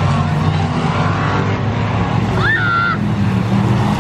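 Several stock cars racing around a paved oval track, their engines blending into a steady, loud drone heard from the grandstand. A short, high-pitched rising call from the crowd cuts through about two and a half seconds in.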